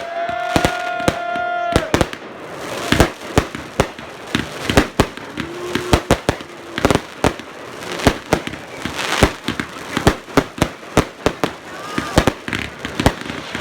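Fireworks and firecrackers going off in a rapid, uneven string of sharp bangs and crackles.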